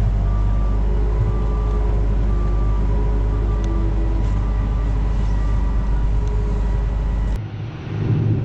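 Diesel engine of farm harvest machinery running steadily with a low, even drone. About seven seconds in, the sound cuts abruptly to a different, rougher engine sound.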